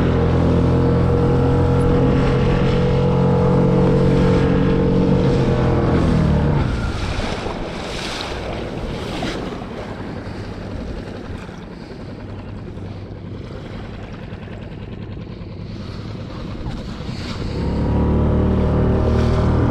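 Small outboard motor of a Solo Skiff running steadily at cruising speed; about six seconds in it dies away, leaving a hiss of wind and water over the hull, and it is heard running again for the last two seconds.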